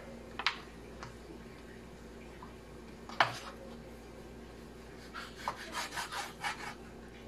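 Large kitchen knife cutting a slab of pork belly on a bamboo cutting board. A few light knocks on the board and one sharp knock about three seconds in are followed near the end by a quick run of short back-and-forth sawing strokes, about four or five a second.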